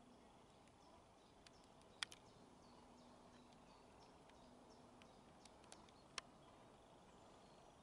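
Near silence with faint background hiss, broken by a few sharp clicks: the loudest about two seconds in and another about six seconds in.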